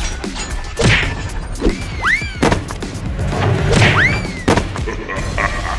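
Cartoon fight sound effects: a string of thuds and crashing hits, with two swooping zaps that rise and then fall in pitch, over a steady low rumble and background music.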